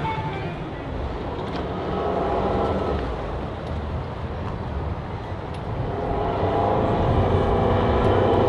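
Engine running: a low rumble with a steady hum that grows louder about six seconds in.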